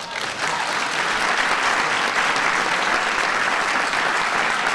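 Audience applauding, the clapping swelling up within the first half second and then holding steady.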